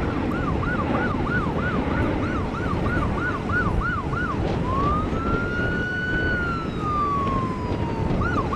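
Emergency vehicle siren sounding a fast yelp, about three up-and-down sweeps a second. About halfway through it switches to one slow wail that rises, holds and falls, then returns to the yelp near the end. Under it runs the steady low rumble of a departing jet's engines.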